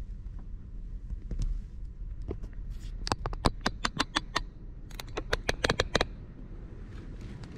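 Two quick runs of sharp clicks, about eight in each, a little over a second apart, over a steady low rumble.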